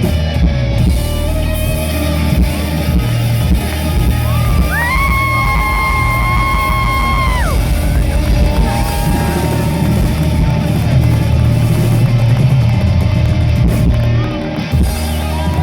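Live rock band playing the instrumental close of a song, electric guitars and drums over a steady beat, with a long held high note for about three seconds in the middle.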